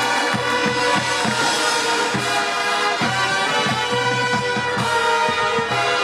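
High school marching band playing, brass holding full chords over a steady run of drum and percussion strokes.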